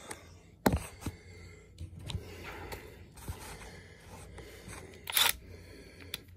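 Quiet handling sounds: a sharp click just under a second in, a few lighter taps, and a short hissy burst about five seconds in.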